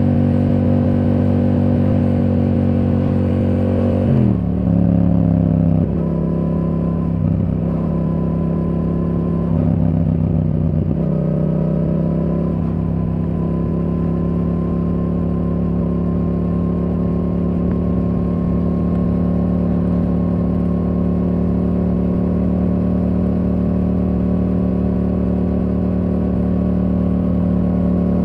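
Yamaha R7's parallel-twin engine through a Yoshimura R77 exhaust, running under way. The engine note drops sharply about four seconds in, rises and dips for several seconds, then settles into a steady cruise.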